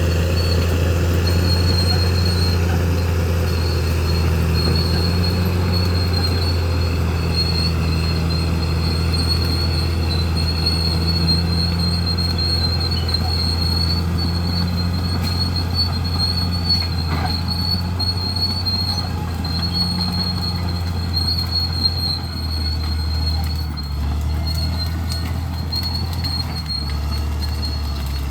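Bulldozer's diesel engine running steadily with a low drone, shifting in load a few times near the end. A steady high-pitched whine rides over it.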